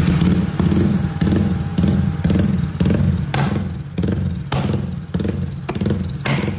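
Honda RS150R single-cylinder four-stroke engine revved hard in rapid throttle blips through an aftermarket exhaust, about two surges a second.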